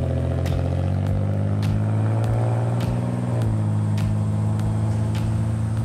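Pontiac Grand Prix sedan accelerating away under load. Its engine note climbs, then drops in pitch about three and a half seconds in as the automatic transmission shifts up, and pulls on steadily after that.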